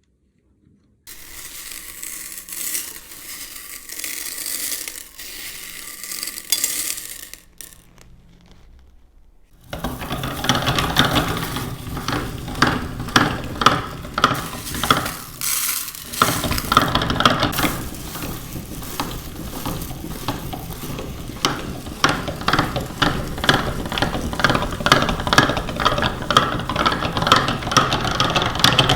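Small meat grinder crunching nuts: a dense run of sharp cracks and crackles sets in about ten seconds in, over a steady motor hum that grows stronger partway through. Before that come several seconds of lighter rattling and hiss.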